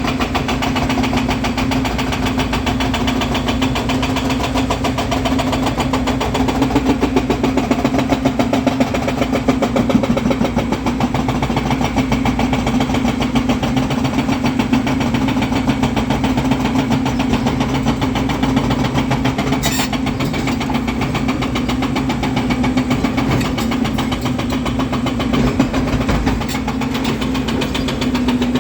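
Volvo EC300DL excavator's diesel engine running steadily, with a constant pulsing hum and one short click about twenty seconds in.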